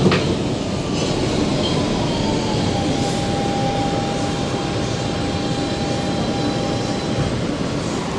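Inside an R160B Siemens subway car: running rumble with the electric propulsion whine falling in pitch, then holding steady and stopping near the end as the train brakes to a stop.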